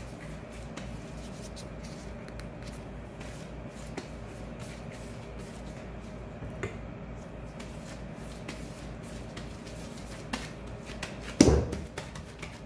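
Plastic-gloved hands handling a ball of bread dough, with faint rustles and small clicks. Near the end there is one loud thud as the dough drops into a ceramic casserole dish.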